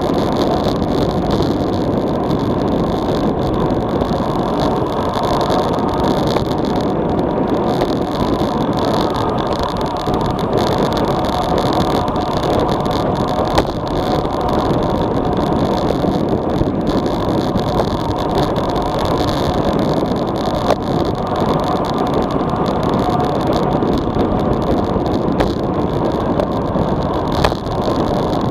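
Steady wind rush on an action camera's microphone from a road bike descending at about 40–45 km/h, with a few light knocks.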